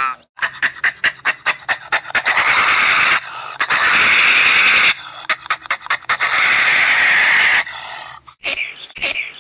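An African savanna animal breathing hard: quick panting puffs about five a second, broken by two long noisy exhalations. A different, higher-pitched sound starts near the end.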